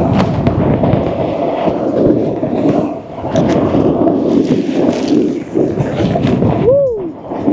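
Snowboard riding downhill: the board's edges and base scrape over the snow, with wind rushing over a body-worn microphone. A brief pitched sound rises and falls near the end.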